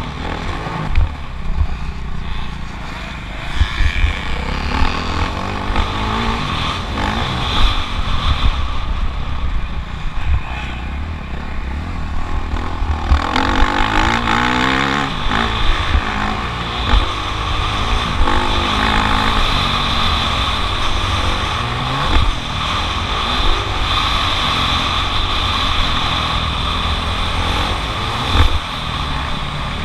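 Motocross bike engine revving hard and easing off over and over while being ridden around the track, its pitch rising and falling. Wind buffets the microphone, with scattered knocks through it.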